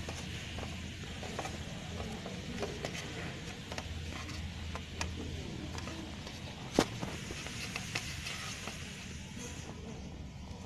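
A dried mango fruit-leather sheet being peeled by hand off a greased steel plate: faint crackling with scattered small clicks and one sharper click about seven seconds in.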